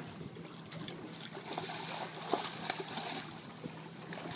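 Water splashing and sloshing around a boat, with a few short sharp knocks.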